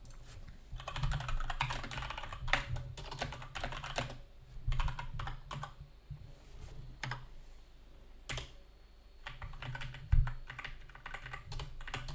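Typing on a computer keyboard: quick runs of key clicks in bursts with short pauses, a few single keystrokes louder than the rest.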